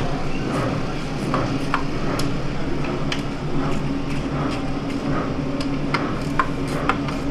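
Scattered metallic clinks and taps of hand tools on a race motorcycle's rear wheel and brake parts as a mechanic works under it, over a steady low hum.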